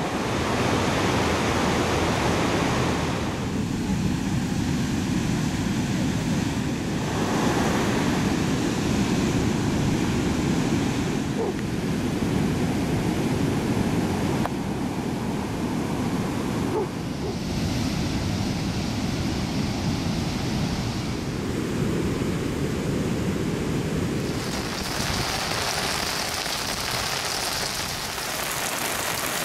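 Heavy surf breaking on a beach: a continuous rush of waves, with wind on the microphone. Near the end it gives way to heavy rain falling, a steady hiss.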